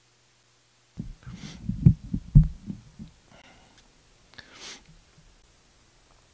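Handling noise from a handheld microphone as it is pushed into its stand clip: a cluster of low thumps and knocks about a second in, loudest around two seconds, then a brief soft rustle.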